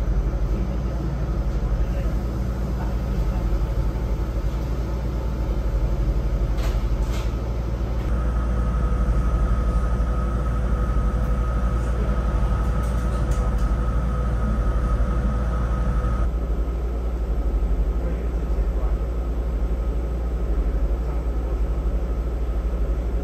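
Steady low hum inside the cabin of a parked BYD K9 battery-electric bus, from its running on-board equipment. A faint, steady higher whine joins for several seconds midway.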